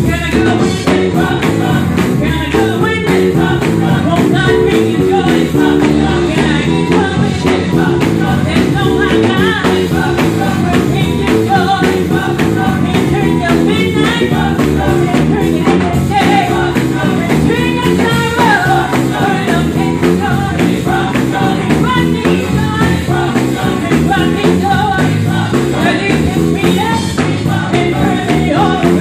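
Live gospel group performing: a woman singing lead into a microphone over electric guitar and a steady beat, loud and full throughout.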